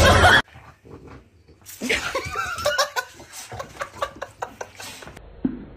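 A person laughing in a run of short bursts and chuckles, after a brief loud sound that cuts off about half a second in.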